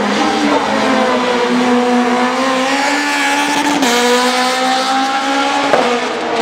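Citroen C2 S1600 rally car's modified four-cylinder engine, straight-piped, running hard at high revs, the pitch climbing between two abrupt breaks, about four seconds in and again near the end, that sound like gearshifts.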